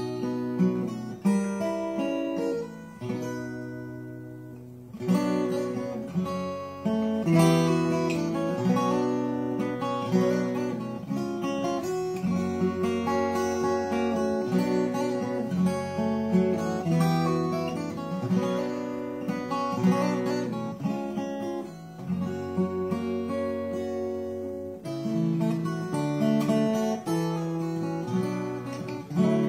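Solo cutaway acoustic guitar playing a slow instrumental piece, chords and melody notes ringing. About three seconds in the notes are left to die away, and playing comes back in strongly about two seconds later.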